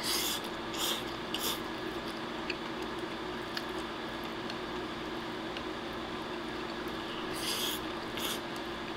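A man eating a tamago-don with chopsticks: a few short slurps of rice and egg in the first second or two and again near the end, over a steady low room hum.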